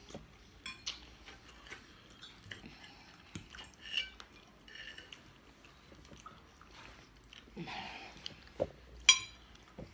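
Chewing with forks scraping and clinking on a china plate, and a sharp clink of metal on the plate that rings briefly near the end.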